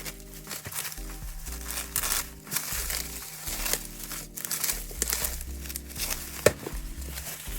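Packaging crinkling and rustling as it is handled, with a sharp click about six and a half seconds in. Soft background music with held chords plays underneath.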